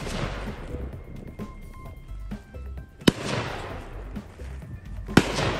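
Two gunshots from target shooting, about two seconds apart, each ringing out after the crack, over background music.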